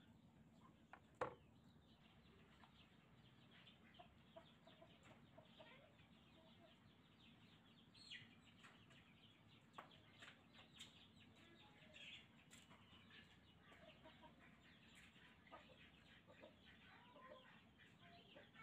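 Faint clucking of domestic chickens in the background, with one sharp knock about a second in and a few lighter clicks.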